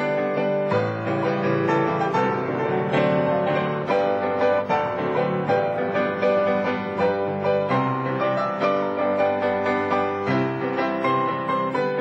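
Solo grand piano playing a waltz.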